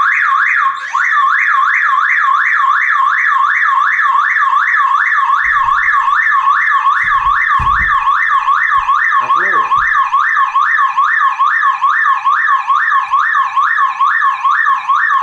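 Battery-backed car alarm siren sounding loudly in a fast up-and-down warble, about three sweeps a second, set off by disconnecting the negative battery cable: its anti-theft function. A few faint knocks come partway through.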